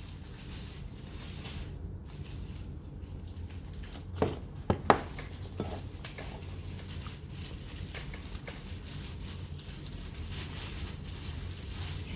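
Hands handling a smartphone box and its accessories: faint rustling with a few short clicks and knocks about four to six seconds in, over a steady low hum.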